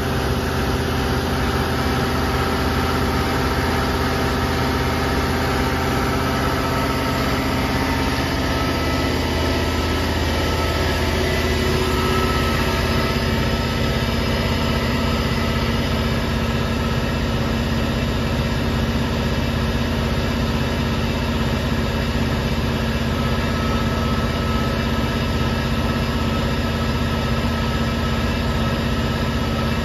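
Cummins QSK50 V16 diesel engine of a 2250 HP frac pump unit running steadily, with its transmission in gear and the pump driveline turning. Its pitch sags slightly about nine to eleven seconds in, then holds steady.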